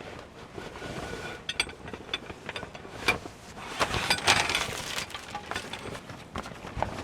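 A run of small clinks, knocks and rustles, as of objects being handled, busiest and loudest about four seconds in.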